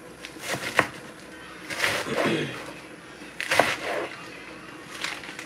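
Cooking utensils knocking and clinking against pots on a stovetop. There are sharp knocks about a second in and again past the middle, with a softer scraping, shuffling stretch between them.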